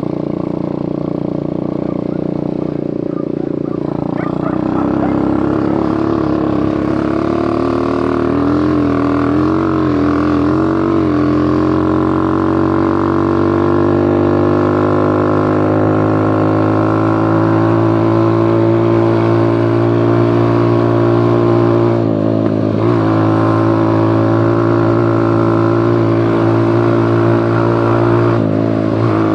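Engine of a 125cc Hummer quad bike running under way. Its revs climb about four seconds in and waver for a few seconds, then hold steady, dipping briefly twice later on.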